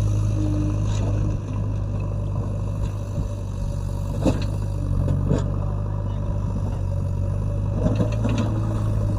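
Backhoe loader's diesel engine running steadily with a deep, even hum, with a few brief knocks about four and five seconds in.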